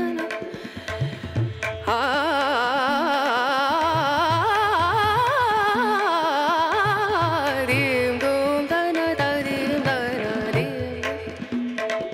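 Background music: a wavering, ornamented melody in an Indian classical style over light drum strokes.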